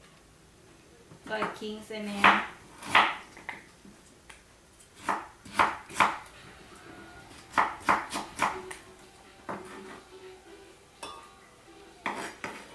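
Kitchen knife chopping vegetables on a cutting board, in irregular clusters of sharp knocks with short pauses between.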